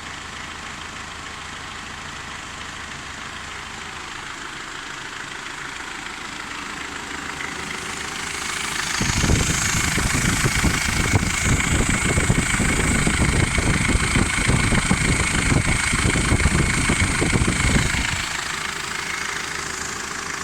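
Freshly rebuilt diesel engine idling during its break-in run after an overhaul with new liners and pistons. About nine seconds in the sound gets much louder and rougher, then falls back near the end.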